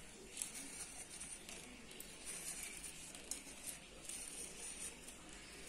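Faint handling noises from a steel plate being shifted on the countertop: a few light taps and scrapes scattered over low room hiss.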